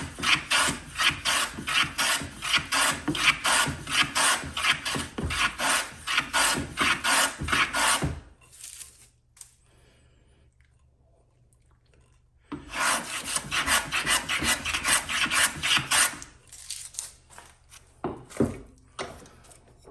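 A hand tool working a white pine batten in quick, repeated strokes, several a second. The strokes stop about 8 seconds in, start again after a pause of about four seconds, then give way to a few separate knocks of wood near the end.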